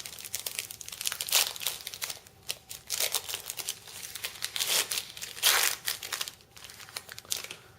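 Trading-card pack wrapper being torn open and crinkled by hand: a run of irregular crackles and rustles, the loudest near the middle, thinning out near the end.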